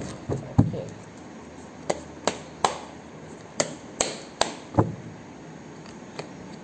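A deck of tarot cards being shuffled by hand: a string of sharp slaps and taps as cards strike the deck, about nine over the first five seconds, unevenly spaced, then quieter near the end.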